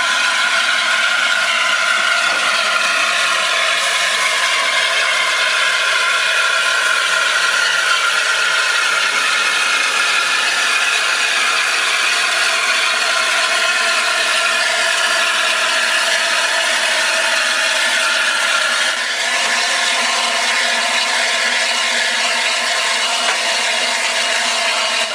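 Hunslet Austerity 0-6-0ST saddle-tank steam locomotive rolling slowly past, its wheels and motion rattling, with a steady metallic squeal of several high tones that shift slowly in pitch.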